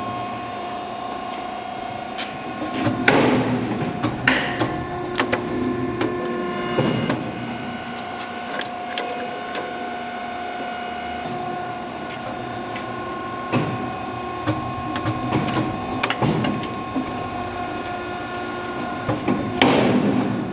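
Bluedog BMC-10 motor crushing machine running with a steady mechanical hum of several fixed tones. It is broken by about eight sharp metal clanks and knocks as a scrap electric motor is loaded into the press and its aluminium casing is cracked off the stator, the loudest just before the end.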